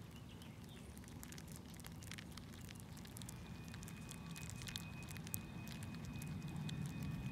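Leafcutter bees chewing through the caps of their cocoons as they hatch: a faint, irregular scatter of tiny crackling clicks over a low steady rumble.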